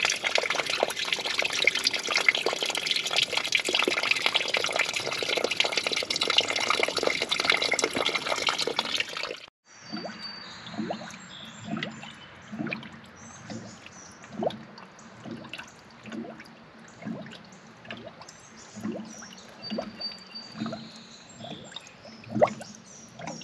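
Water running and splashing for the first nine seconds or so. After an abrupt cut come slow, irregular bubbling pulses, about one a second: trapped air burping up out of a 1968 Triumph GT6's freshly refilled cooling system.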